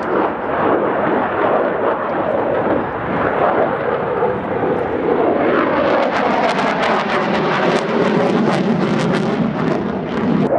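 A MiG-29 Fulcrum fighter's twin RD-33 turbofan engines during a display pass: a steady, loud rushing jet noise that turns crackling about halfway through as the jet passes overhead, with the pitch slowly falling.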